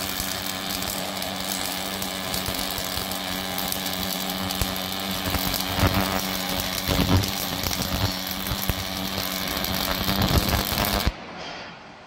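MIG welding arc crackling and hissing steadily over a steady low hum as an automatic welder lays a circular seam on a piston rod. The crackle cuts off suddenly about 11 seconds in as the weld ends and the arc goes out.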